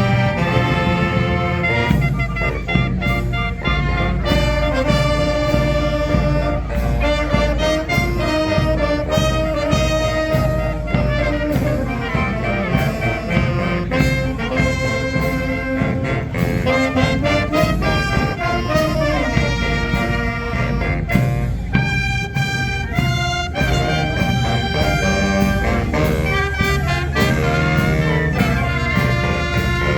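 Brass-and-drum fanfarra playing a march tune: trumpets and trombones holding melody notes over a steady drum beat.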